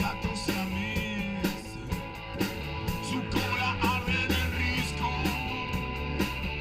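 Live rock band playing an instrumental passage: electric guitar lead over bass and a steady drum beat.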